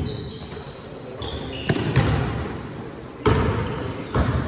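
Basketball being played on a gym court: sneakers squeaking in short high-pitched squeals and the ball bouncing, with sudden thumps at about one and a half and three seconds in.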